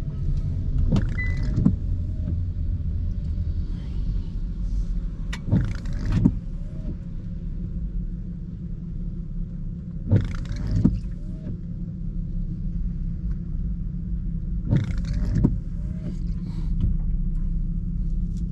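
Steady road and engine rumble inside a moving car's cabin in the rain, with the windscreen wipers on an intermittent setting: a pair of quick wiper strokes about every four and a half seconds.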